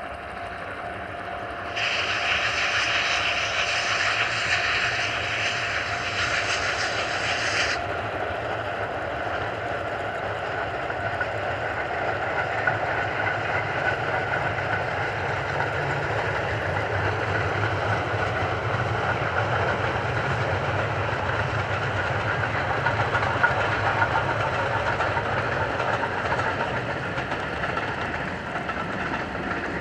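Steam train, the D51 200 locomotive hauling its coaches, running past with a continuous rail rumble and clickety-clack. A sharp-edged hiss starts about two seconds in and stops suddenly after about six seconds.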